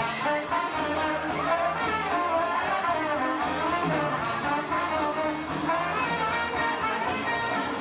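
Live swing band playing an instrumental passage, horns carrying the melody over bass and drums with a steady beat, heard through a VHS-C camcorder's microphone.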